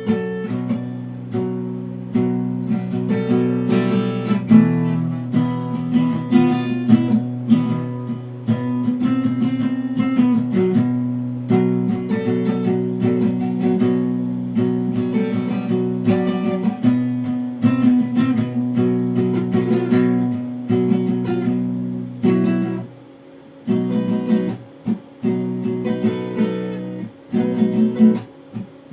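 Guitar music of strummed chords, with no singing. It dips briefly about three quarters of the way through, then goes on in shorter, choppier strokes.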